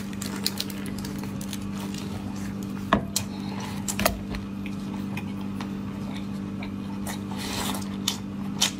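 Close-up eating sounds: cooked shellfish shell cracking and crunching between the teeth, with wet chewing and a few sharp cracks about three and four seconds in. A steady low electrical hum lies underneath.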